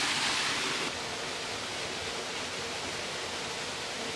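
Waterfall pouring into a plunge pool: a steady, even rushing of water that drops slightly in level about a second in and then holds.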